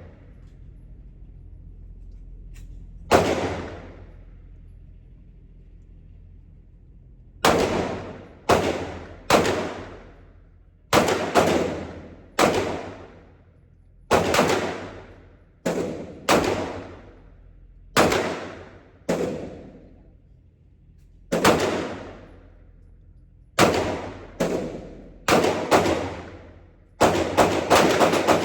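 Glock 19 9mm pistol firing, about twenty single shots roughly a second apart, each with a ringing echo tail. The shots quicken into a fast string near the end.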